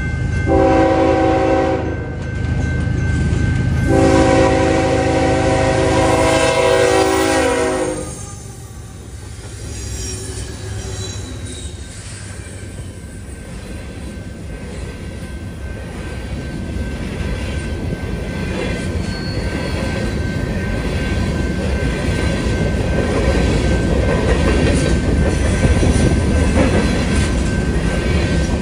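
Freight locomotive horn sounding two blasts, a short one and then one of about four seconds. Then the rumble and wheel clatter of a string of loaded grain hopper cars rolling past close by, growing louder towards the end.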